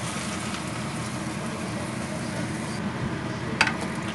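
Water poured from a container into a hot steel pot of sautéed beef and onions, a steady splashing hiss with sizzling as it hits the pan. About three and a half seconds in there is one sharp knock.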